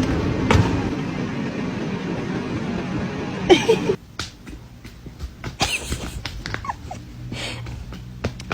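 A pet animal making a few short calls, over a steady rustling noise for the first half, with scattered clicks or knocks.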